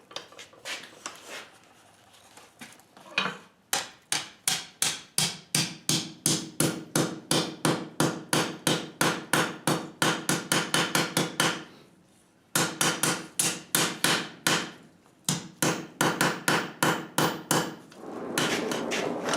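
Hand hammer striking 1/8 inch by 1 inch steel strap on an anvil to fold it in half, in fast even runs of about three to four blows a second with short pauses, each blow ringing. A steadier rushing noise starts near the end.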